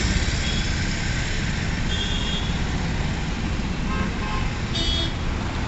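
Mixed road traffic at a busy city junction: cars and motorcycles passing close, with steady engine and tyre noise. Short vehicle horn toots sound about two seconds in and again, louder, near the end.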